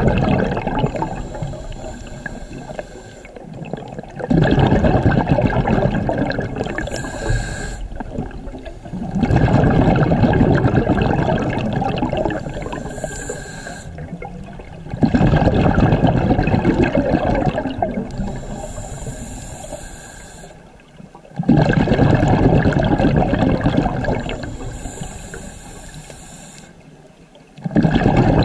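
Scuba diver breathing through a regulator underwater: a short hiss on each inhale, then a sudden rush of exhaled bubbles that gurgles and fades over a few seconds. The cycle repeats about every six seconds, five exhales in all.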